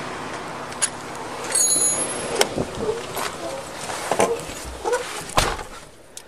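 Handling noise and footsteps on a body-worn camera, then a patrol SUV's door opened and shut with a heavy thump about five seconds in, after which the sound is muffled inside the cab.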